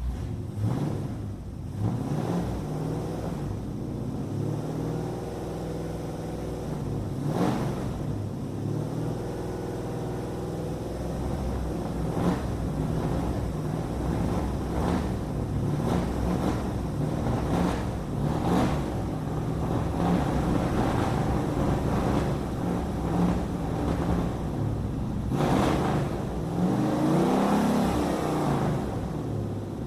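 Muscle car engine running at a rumbling idle, revved several times, with a longer rev rising and falling near the end.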